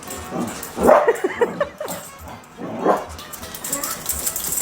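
A dog barking: a quick run of barks about a second in, then one more near three seconds.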